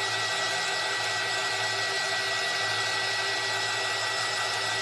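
Handheld craft heat gun blowing hot air steadily to dry freshly applied paint, a continuous rush of air with a thin high whine over a low motor hum.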